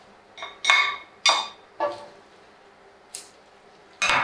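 About six ringing clinks of a ceramic bowl and a utensil knocking against an enamelled cooking pot as spinach is tipped in. A louder knock just before the end comes as a ceramic bowl is set down on a stainless-steel counter.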